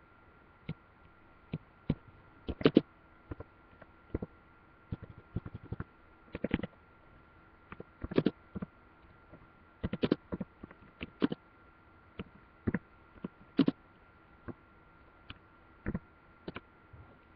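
Computer keyboard typing: irregular sharp key clicks, some single and some in quick runs, over a faint steady electrical hum.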